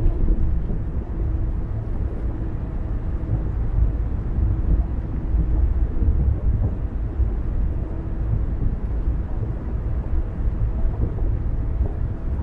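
Car driving along the road: a steady low rumble of road and engine noise, with a faint hum that comes and goes.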